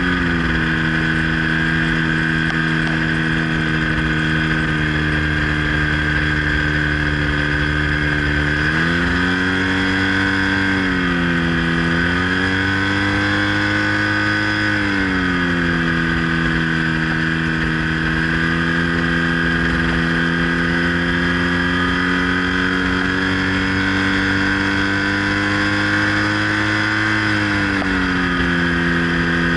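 Microlight trike's engine and pusher propeller running at low power while taxiing. The engine note eases back at the start, picks up and dips twice in the middle, then drops again near the end.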